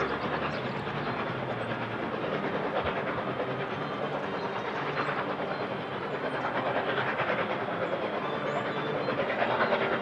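LNER A4 three-cylinder Pacific steam locomotive 4464 Bittern running with its train, growing somewhat louder near the end.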